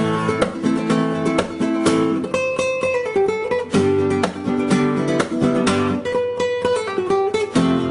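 Background music: acoustic guitar playing strummed chords in a quick rhythm.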